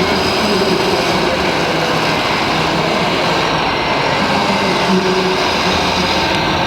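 Scale RC construction machines, model hydraulic excavators and tipper trucks, running together: a steady mechanical din with a few low hum tones held and shifting slightly.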